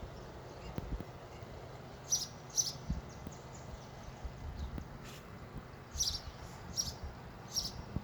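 A bird chirping outdoors in short, high calls: two close together about two seconds in, then three more near the end. A steady low background runs beneath them.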